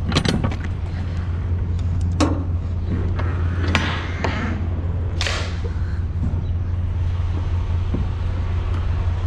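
Semi-truck diesel engine idling with a steady low rumble. A few scattered clicks and two brief hiss-like bursts, about four and five seconds in, sit over it.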